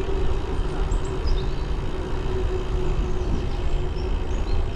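Wind rushing over a handlebar-mounted camera and tyre rumble from a bike riding along a road, with a steady hum underneath and a few short, high chirps of small birds.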